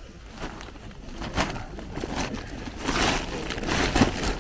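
Rustling and crinkling handling noise close to the microphone, with louder brushes about a second and a half, three and four seconds in.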